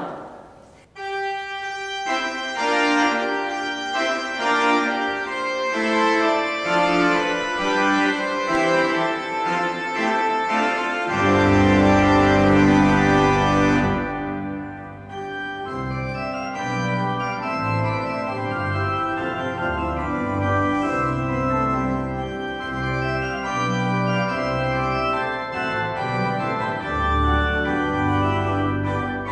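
Organ playing closing music in sustained chords, with low bass notes coming in about eleven seconds in and the fullest, loudest passage just after.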